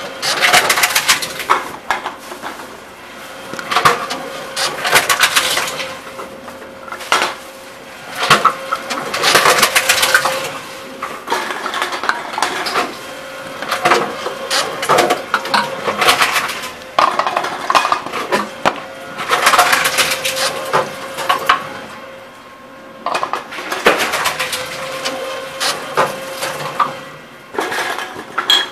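Tomra T-63 reverse vending machine taking in plastic drink bottles one after another: repeated bursts of clattering and rattling every couple of seconds as each bottle goes into the intake, over a steady machine hum.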